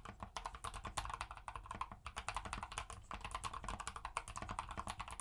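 Fast typing on a modded Drop CTRL mechanical keyboard with lubed Holy Panda tactile switches and foam in the case: a dense stream of keystroke clicks, with brief pauses about two and three seconds in.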